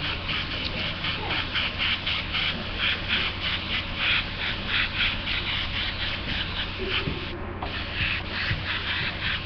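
Airbrush spraying paint onto a T-shirt: an air hiss worked in quick bursts, several a second, with a short break a little past seven seconds.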